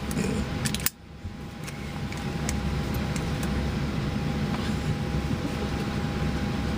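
Steady cabin noise of a moving vehicle, with a faint steady hum. It drops out abruptly about a second in, then builds back up and holds.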